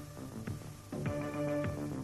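Background music: sustained chords with a few light ticks, changing to a new chord about a second in.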